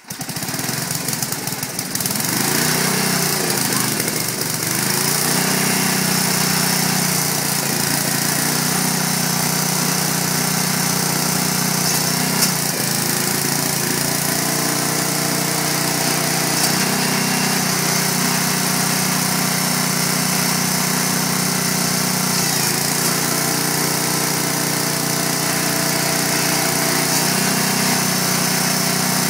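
Small single-cylinder gasoline engine on a home-built hydraulic log splitter, pull-started and catching straight away, then running steadily. Its note steps down and back up several times as the hydraulic pump takes load while the splitting ram is run out and back.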